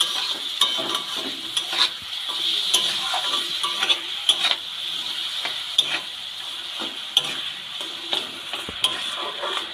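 Spatula scraping and stirring olive pickle in a kadai of hot mustard oil, with a steady frying sizzle under irregular scraping strokes about once or twice a second. The stirring is working in sugar just added so that it melts.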